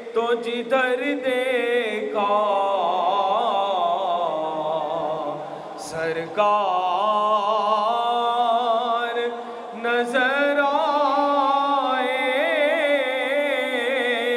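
A man singing an Urdu naat into a microphone in long, drawn-out phrases with a wavering, ornamented pitch, pausing briefly for breath about six and again about ten seconds in.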